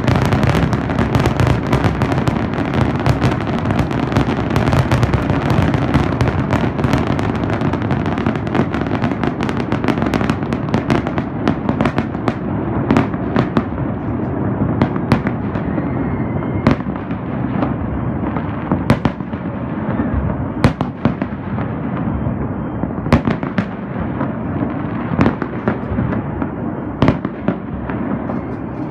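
Fireworks display: a dense, continuous barrage of booming shell bursts and sharp crackling reports, easing after about twelve seconds into more spaced-out bangs over a steady rumble.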